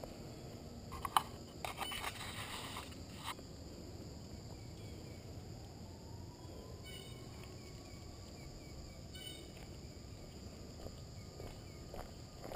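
Steady high chirring of insects in outdoor ambience. A cluster of clicks and rustles comes about a second in, and a few footfalls on asphalt come near the end.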